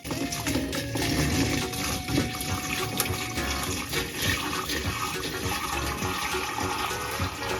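Water being poured into a small fish tank over gravel: a steady, continuous splashing pour.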